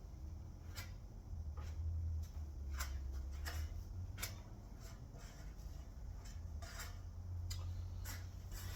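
Body filler being spread onto a steel car panel with a filler spreader: irregular light clicks and taps as the spreader meets and leaves the panel, about a dozen over the stretch, over a low steady hum.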